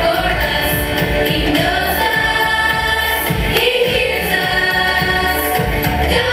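A song with several voices singing together over a steady bass beat.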